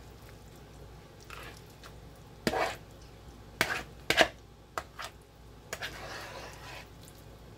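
A utensil stirring thick, creamy chicken pot pie filling in a mixing bowl: a handful of irregular knocks against the bowl, the loudest about four seconds in, and a short scraping swish near the end.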